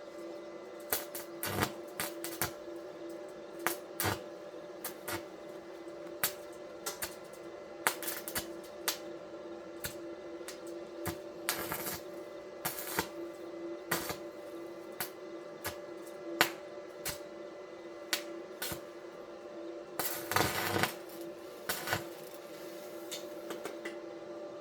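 Irregular clinks, taps and knocks of metal parts and tools being handled in a workshop, over a steady background hum. About twenty seconds in there is a brief rasping, hissing burst.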